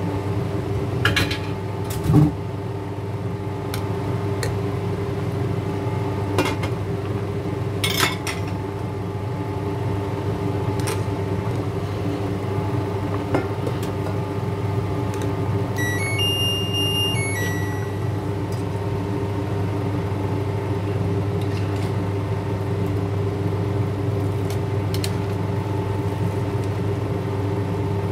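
Bitter melon pieces blanching in a pot of boiling water on an induction cooktop, over the cooktop's steady hum, with a spatula knocking against the pot a few times. About halfway through comes a short run of electronic beeps.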